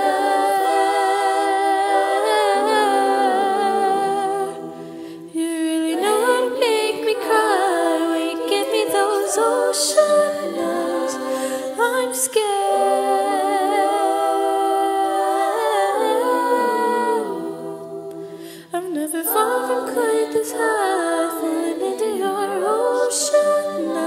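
Treble-voice (SSAA) vocal jazz ensemble singing a cappella in close harmony, sustained chords in long phrases. There are two short breaks between phrases, about five seconds in and again near eighteen seconds.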